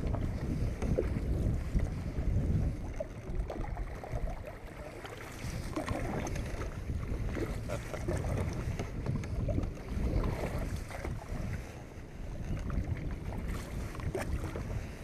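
Canoe paddle strokes pulling through calm river water alongside an open canoe's hull, swelling every few seconds. Wind rumbles on the microphone throughout.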